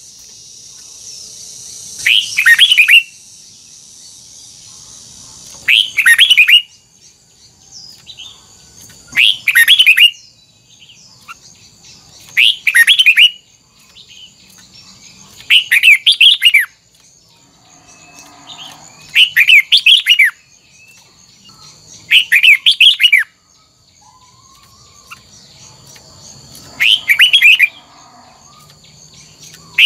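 Red-whiskered bulbul singing: about eight short, loud phrases of quick falling notes, repeated every three to four seconds. A faint steady high-pitched whine runs underneath.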